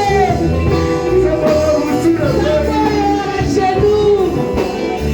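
Church worship music: a voice singing a melody over instrumental backing with a steady bass line, loud and continuous.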